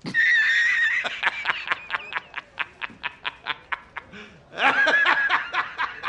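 A man laughing hard in a film clip: a high drawn-out whoop, then a rapid cackle of short bursts, about six a second, and a second high whoop about four and a half seconds in before more cackling.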